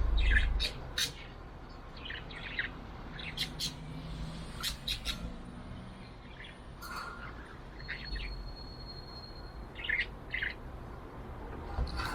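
Pet budgerigar chirping: short, sharp high chirps in scattered clusters, with one longer steady whistle a little after halfway. A low rumble at the very start is briefly the loudest sound.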